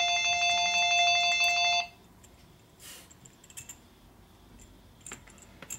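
Telephone ringing with an electronic trilling ring. One ring of about two seconds is followed by a pause with a few faint clicks, and the next ring starts at the very end.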